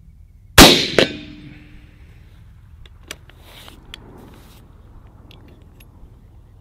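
A .350 Legend rifle, a Thompson/Center Encore single-shot, fires one shot. The loud report is followed about half a second later by a second, quieter crack with a brief ringing tone, then the sound dies away. A few faint clicks follow.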